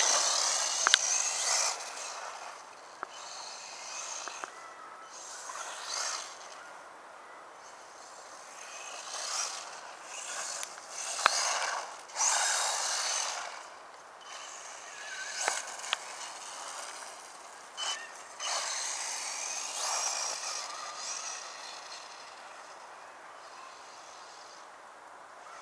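Traxxas 1/16 Slash VXL radio-controlled short-course truck on a 2S LiPo, its brushless motor and tyres on loose gravel coming and going in bursts as it is driven on and off the throttle, with a few sharp ticks of stones. The bursts are loudest at the start and again around twelve and twenty seconds in.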